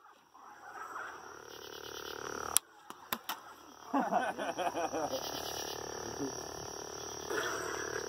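Sharp clacks of heavy-grade stunt lightsaber blades striking each other, once about two and a half seconds in, then a quick run of three about half a second later. A short voice-like sound follows about four seconds in. Underneath is a steady night chorus of frogs and insects with a fast pulsing trill.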